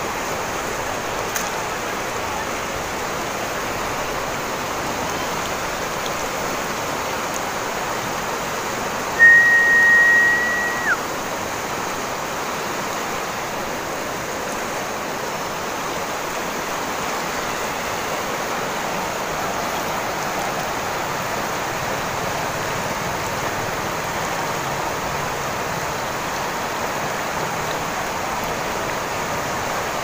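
Shallow river flowing steadily over a rocky bed, a constant rushing noise. About nine seconds in, a single high whistle is held for about a second and a half and drops off at the end.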